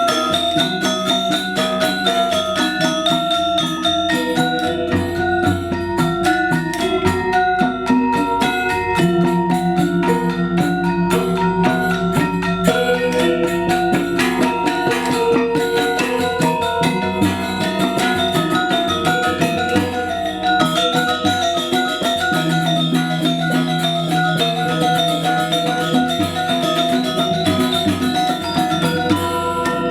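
Balinese gamelan playing accompaniment for the legong dance: bronze metallophones ring out fast, dense strings of notes over held lower tones, with drums.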